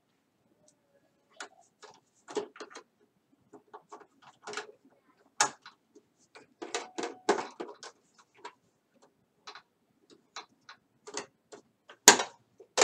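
Hands handling small parts and thread at a sewing machine: irregular light clicks and knocks, in small clusters, with a louder knock near the end. The machine itself is not stitching.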